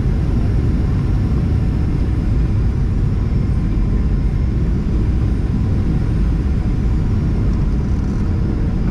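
Steady low rumble of engine noise and rushing air inside the cabin of a Boeing 737-800 with CFM56-7B engines, on short final just before touchdown.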